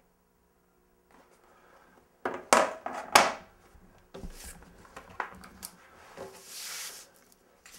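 Film clapperboard being clapped: two loud sharp claps about two-thirds of a second apart, each with a short ringing tail. Lighter knocks and rustling handling noise follow.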